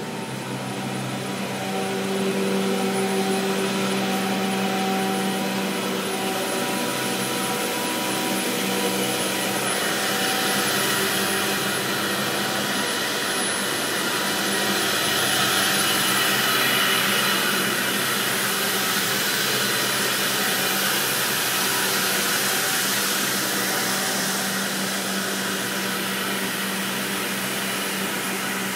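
Steady hum of semiconductor-fab equipment and air handling: a rushing hiss with several steady tones beneath it, the hiss swelling for a while in the middle.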